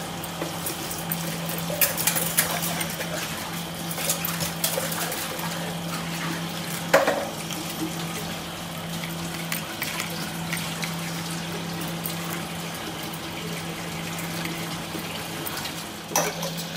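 A hand squishing and swishing a wet paste of ground crab legs in water in a plastic bowl, wringing the juice out of it, with a few sharper clicks and a steady low hum underneath.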